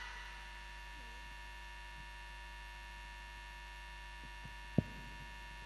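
Steady electrical mains hum with a buzzing stack of steady tones, and a single short click near the end.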